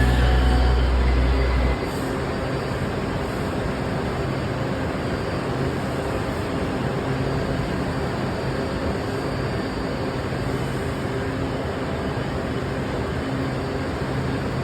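Washington Metro train in the station: a heavy low rumble cuts off about two seconds in, leaving a steady, even noise.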